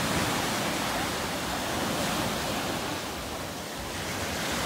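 Sea waves breaking and washing up on the shore, a steady surf noise that eases slightly about three seconds in.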